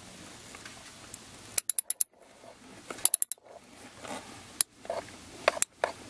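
Hand socket ratchet with a bit extension clicking as it is swung back and forth to back out a tight screw. There are two quick runs of four or five clicks about a second and a half apart, then a few scattered clicks.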